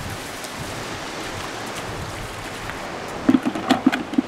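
Steady hiss of wind and surf on an open beach. Near the end, a quick run of about half a dozen clattering knocks as a plastic bucket and magnet-fishing gear are set down on pebbly sand.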